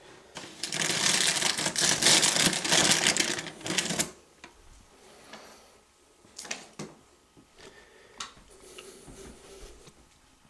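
Loud crackling rustle of rummaging in a cardboard box and its packaging, lasting about three and a half seconds, followed by a few scattered light clicks and knocks.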